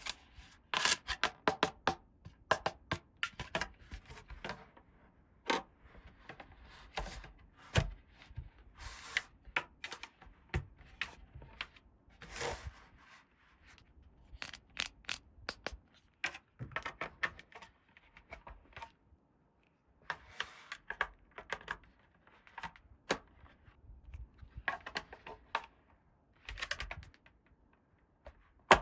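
Hands handling small plastic toy pieces from a dollhouse playset: an irregular run of light clicks and taps as parts are picked up, fitted and set down, with a few short rustles.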